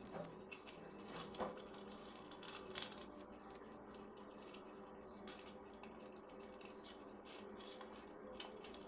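Faint handling sounds as hands tie beaded thread onto a glitter foam craft umbrella: light clicks and rustles, the loudest few in the first three seconds, over a steady low hum.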